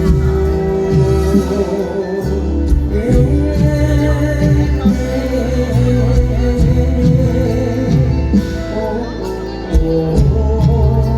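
Live Thai mor lam band music, a steady bass beat under a voice singing.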